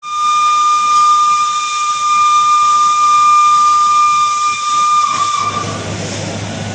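Steam whistle of the vintage EIR 21 steam locomotive blowing one long, steady note over hissing steam. The note stops with a slight drop in pitch about five seconds in, leaving a rumbling hiss.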